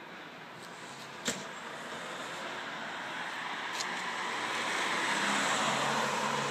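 Motor vehicle passing by, its engine and tyre noise swelling to a peak about five seconds in and then easing off. A single short click about a second in.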